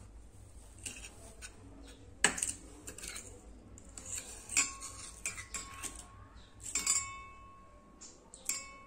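Steel spoon clinking against a stainless steel pot as curd starter is spooned into lukewarm milk: a series of sharp clinks, the loudest a little over two seconds in, the later ones ringing on briefly like a struck bell.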